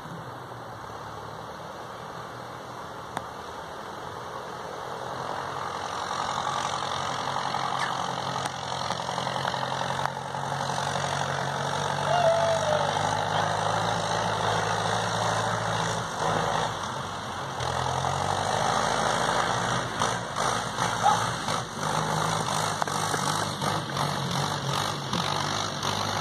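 Small vintage grey tractor's engine idling steadily, getting louder about a quarter of the way in.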